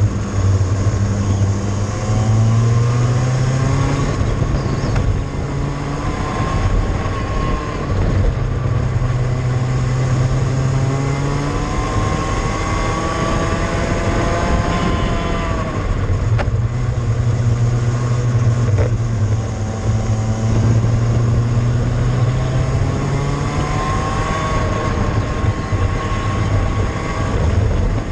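Cadet kart engine heard onboard at racing speed, its revs climbing for several seconds at a time and then dropping off, a few times over as the kart laps the track.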